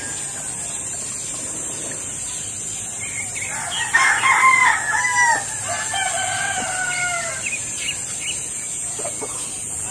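A rooster crowing, starting about three and a half seconds in and lasting about four seconds, the call ending on a falling note.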